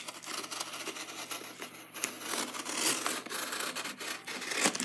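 Utility knife slicing along the taped seam of a cardboard box, a continuous scraping rasp, with a sharp click at the start and another near the end.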